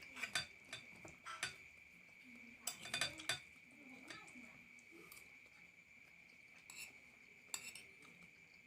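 Cutlery clinking and scraping against a plate as food is scooped, in short clusters of clicks: near the start, around three seconds in, and twice near the end. A steady high-pitched tone runs underneath.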